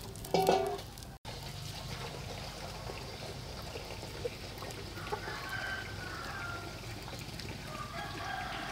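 Chickens calling in the background, with a short loud call about half a second in and a rooster crowing in the second half.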